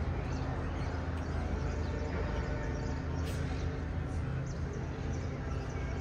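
Steady low outdoor background rumble with faint, scattered short bird chirps.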